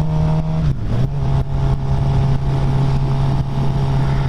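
Sportbike engine running at a steady cruising speed under a constant rush of wind on the helmet microphone. The engine note dips briefly just under a second in, then holds steady again.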